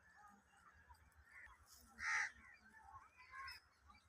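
A crow cawing once, loud and short, about two seconds in, with a few fainter calls around it against a quiet background.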